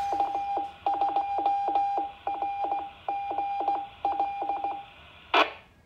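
Home-built VHF repeater sending its Morse code ident, heard through a handheld transceiver's speaker: one steady tone keyed in dots and dashes in groups. A short burst of hiss about five seconds in, as the repeater's carrier drops and the squelch closes.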